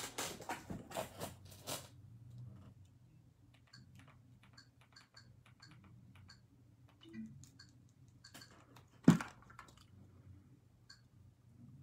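Quiet clicks and crackles: a dense run of crackling in the first two seconds, then scattered soft ticks over a low hum, and one sharp loud knock about nine seconds in.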